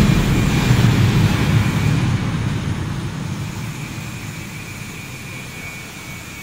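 Loud rumbling machine noise, loudest in the first two seconds and then slowly fading.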